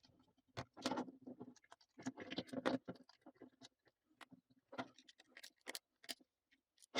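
Faint, irregular small clicks and scrapes of C-clips being taken off the piston and gear pins of a Ryobi compressor's plastic-piston pump.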